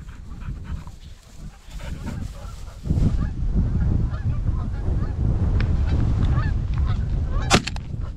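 Geese honking, many calls overlapping. Strong wind buffets the microphone from about three seconds in, and there is a sharp click near the end.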